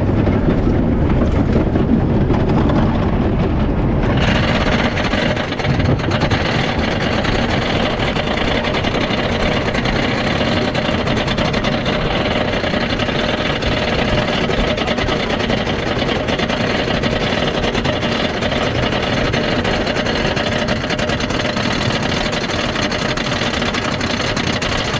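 Wooden roller coaster train clattering along its wooden track, a dense, fast rattle. About four seconds in it turns harsher and brighter.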